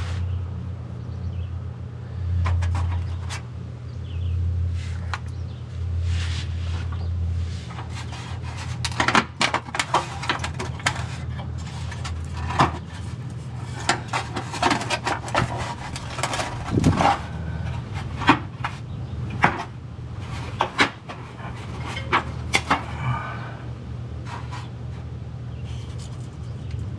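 Loose exhaust heat shield under a Toyota Yaris being worked on: a long series of sharp metal knocks, clanks and rattles, sparse at first and thickest from about a third of the way in, over a steady low hum.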